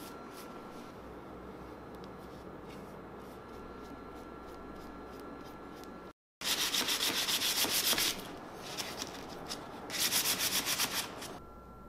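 Cloth rubbed briskly back and forth over a walnut plaque with brass inlays, wiping on finish. Two loud runs of rapid, even strokes come in the second half, after a stretch of faint steady hiss.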